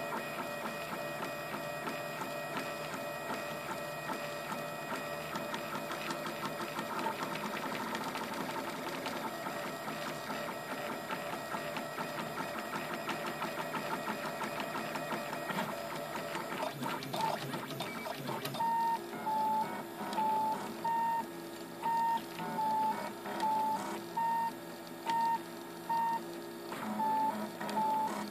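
RepRap 3D printer's stepper motors whining in several steady tones as the print head moves. About two-thirds of the way through, the whine breaks into short, evenly repeated pitched notes, roughly every half second, as the head shuttles back and forth in short moves.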